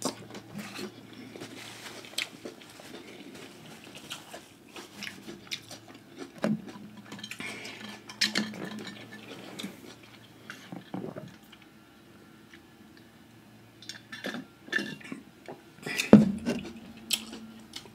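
Light clinks and knocks of plates and utensils as food is handled at the table. A hand-twisted seasoning grinder runs for a few seconds in the middle, and there is a louder knock near the end.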